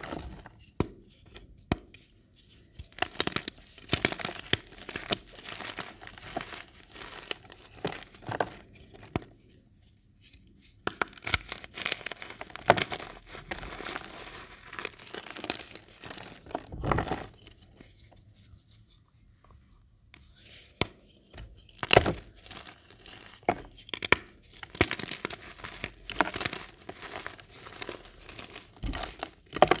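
Blocks of reformed gym chalk crushed and crumbled by hand: dry crunching and crackling in bouts, with short pauses and a few louder snaps as pieces break.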